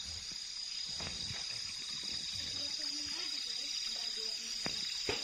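A chorus of night insects trilling steadily at a high pitch, with a few faint clicks near the end.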